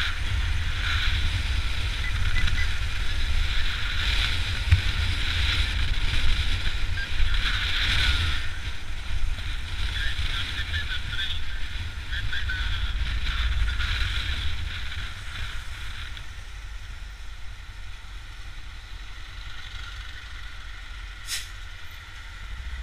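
Motorcycle riding along a street, its engine running under heavy wind buffeting on the microphone; it eases off and gets quieter over the last several seconds as it slows, with a single sharp click near the end.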